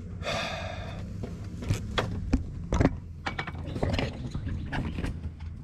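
A run of irregular, sharp metallic clicks and light knocks, from hands and tools working around an engine, over a steady low hum.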